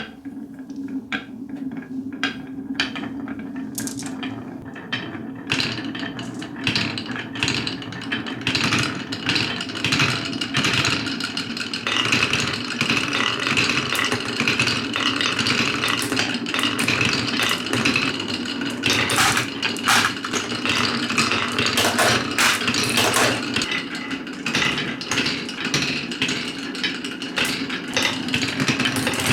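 Marbles rolling and clattering along wooden marble-run tracks: a steady rolling rumble under dense, irregular clicks and knocks.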